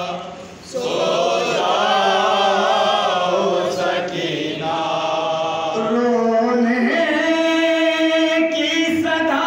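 A man singing a noha, a Shia mourning lament, in long held notes that waver slightly in pitch, with a short break just after the start before the singing resumes.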